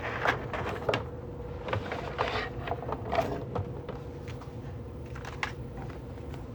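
Scattered light clicks and taps of small parts being handled, over a faint steady hum.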